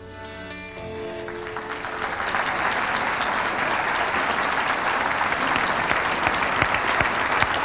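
Closing music fading out in the first second or two as audience applause builds, then steady applause from a room full of diners.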